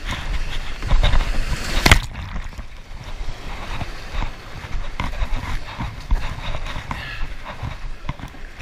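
Boat on whitewater: irregular knocks and splashes over a steady rush of water, with one sharp, loud hit about two seconds in.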